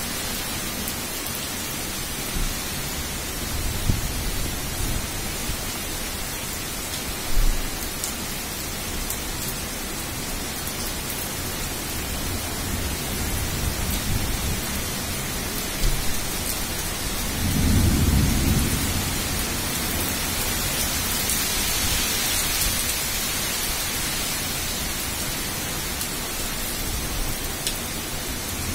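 Heavy rain pouring steadily in a storm, with a low rumble about two-thirds of the way through and a few brief low thumps earlier on.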